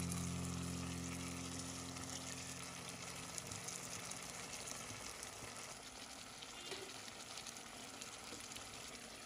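Marinated chicken pieces frying in oil and masala in a pot, a steady sizzle, stirred with a wooden spatula. Background music fades out in the first few seconds.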